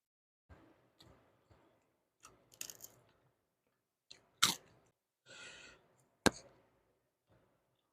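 A person eating: chewing and crunching mouthfuls, with a series of short sharp clicks and taps, the loudest about four and a half and six seconds in, and a brief rustle just before the last loud click.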